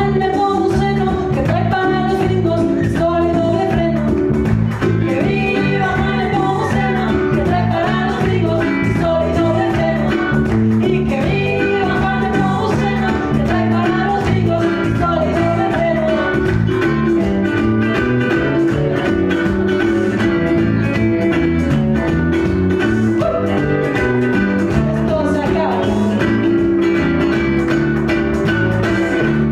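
A woman singing a corrido while strumming chords on a ukulele, her voice carrying the melody over a steady strummed accompaniment.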